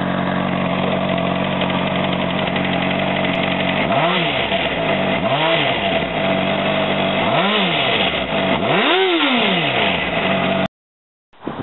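A 2006 Honda CBR600RR inline-four idling on its stock exhaust, then blipped four times, each rev rising and falling in pitch, starting about four seconds in at intervals of about a second and a half to two seconds. The sound cuts off suddenly near the end.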